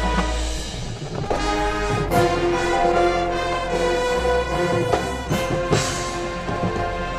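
Marching band playing: brass and woodwinds hold loud sustained chords over drums. There are sharp full-band accents about two seconds in and again about five seconds in.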